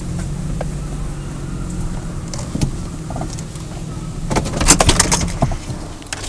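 Hunting truck's engine running steadily while driving. About four seconds in there is a burst of rattling and clattering.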